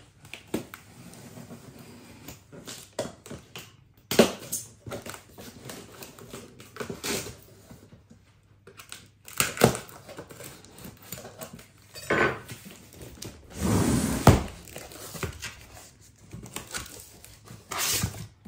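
A blade slitting the packing tape along a cardboard box, then the cardboard flaps being pulled open: irregular scraping, tearing and crinkling, with a few louder knocks.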